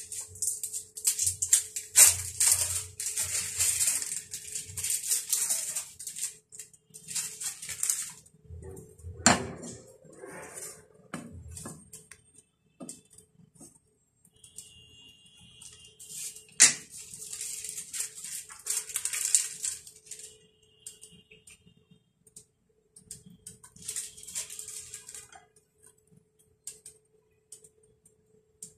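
A wooden spatula scrapes and taps on a ceramic nonstick frying pan as slices of bread are turned while toasting. The scraping comes in several bursts, with three sharp knocks on the pan, over a steady faint hum.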